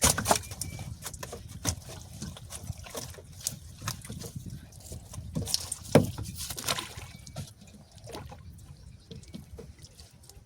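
Water splashing and trickling, with scattered knocks and splashes; the loudest comes right at the start and about six seconds in.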